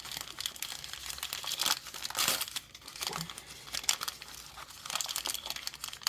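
Crinkly packaging of Miniverse capsule balls being handled and crumpled, crackling in irregular bursts, loudest about two seconds in.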